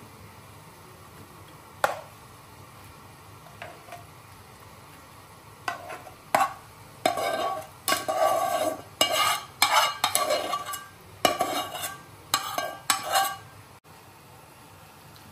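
A utensil stirring and scraping in a cooking pan: after a single click, an irregular run of clattering strokes lasting about seven seconds, over a faint steady hiss.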